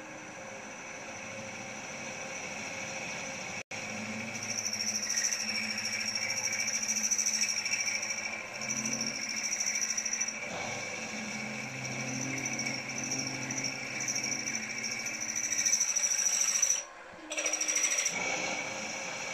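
Milling machine spindle drilling with a 9/32 in twist drill into a metal casting: a steady motor whine over an uneven cutting rumble that grows louder a few seconds in. It drops away for about a second near the end, then resumes.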